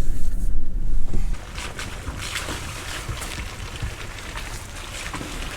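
Vehicle engine rumbling, cutting off abruptly about a second in, followed by a steady rushing noise with scattered crackles, like flowing water or wind.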